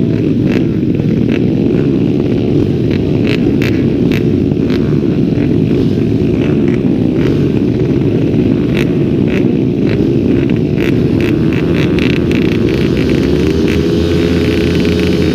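Pit bike engines running on a race starting grid, the nearest bike's single-cylinder engine loud and close, with irregular sharp ticks over the steady engine noise. From about 13.5 s in the engine sound turns steadier in pitch.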